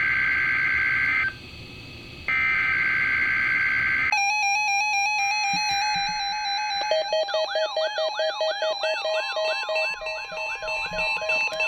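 NOAA Weather Radio weekly test alert. First come two harsh, buzzy bursts of SAME header data, each about two seconds long with a short gap between them. About four seconds in, the steady warning alarm tone starts. About three seconds later a receiver's own alarm joins it: a rapidly repeating rising warble with pulsing beeps.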